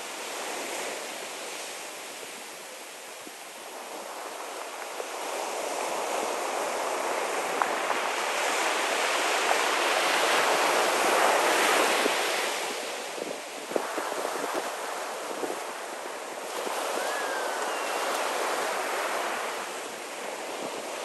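Ocean surf breaking and washing up a sandy beach, a steady rush that swells loudest about halfway through and again near the end.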